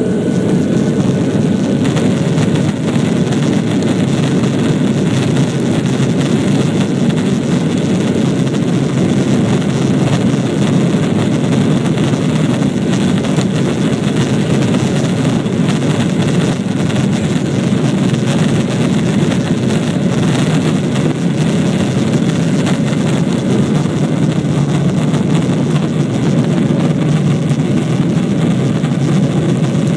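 Airliner's jet engines at takeoff power heard from inside the passenger cabin: a loud, steady roar during the takeoff run and climb.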